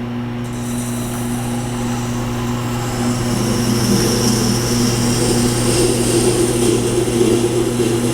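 Tormek T-8 grinding wheel running with a steady motor hum while the steel of a Leatherman blade is ground against the stone. The hissing scrape of steel on the stone starts about half a second in and grows louder partway through, as an 18° secondary bevel is ground to raise a burr at the heel.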